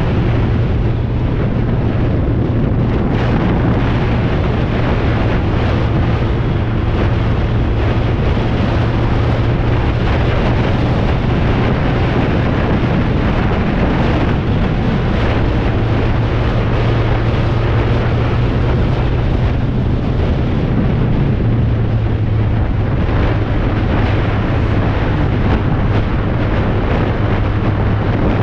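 BMW K1200R's inline-four engine running steadily at road speed under heavy wind rush over the microphone. The engine note drops slightly about two-thirds of the way through.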